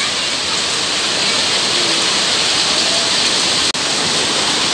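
Rain falling steadily on wet pavement and puddles, a dense even hiss that breaks off for an instant about three and a half seconds in.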